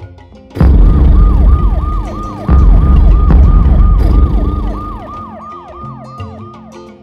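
Siren wailing in a fast yelp, about three quick falling sweeps a second, over a loud low rumble that starts suddenly about half a second in and fades in the last couple of seconds.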